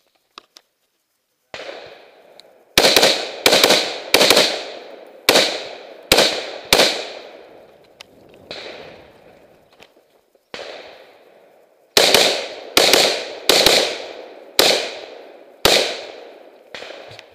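A rapid string of about seventeen gunshots from a 3-gun competitor's pistol and scoped rifle during a timed stage, each shot ringing out in an echo. A single quieter shot opens the string, a run of six loud ones follows, then two quieter shots, then a second fast run of about eight near the end.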